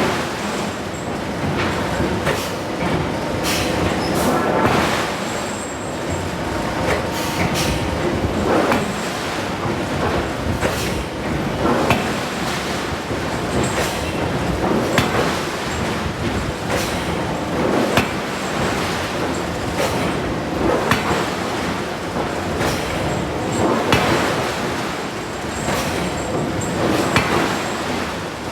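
Forge shop din with a large hydraulic forging hammer striking hot steel in irregular blows, roughly one every second or two, over a steady rumble of machinery with a faint hum.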